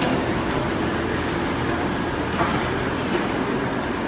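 Steady din of woodworking machinery in a veneer factory, with a few light clicks and knocks.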